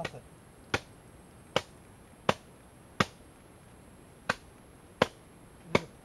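Machete chopping into the mud of a crab burrow: seven short, sharp strikes, about one every three-quarters of a second, with a longer pause near the middle.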